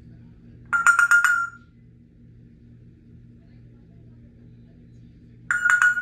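Congo African grey parrot mimicking a phone ringing: two short pulsing electronic-sounding rings at one steady pitch, about a second in and again near the end, over a faint low hum.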